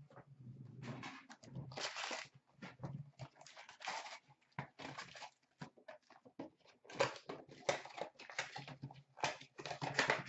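Hobby box of trading cards being unwrapped and opened by hand: irregular crinkling and tearing of the plastic wrap, rustling, and light clicks and knocks as the card packs are pulled out and set down on a glass counter.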